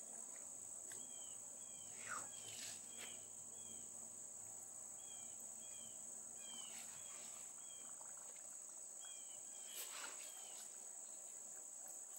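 Faint evening insect chorus, an unbroken high-pitched trill, with short chirps repeating in pairs and a few brief falling calls now and then.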